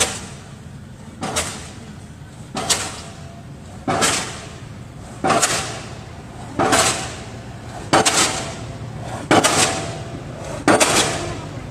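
Pile driver hammer striking a pile in a steady rhythm, about one blow every 1.3 seconds, each blow ringing briefly, over a steady low machine hum.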